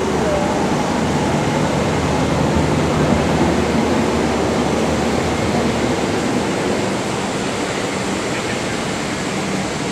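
Steady rushing air-conditioning noise with a low hum in a parked airliner's jet bridge and cabin, easing slightly about seven seconds in.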